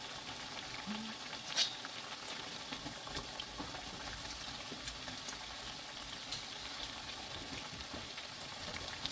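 Battered sweet potato slices deep-frying in hot oil: a steady sizzle with scattered small pops, and one sharper click about one and a half seconds in.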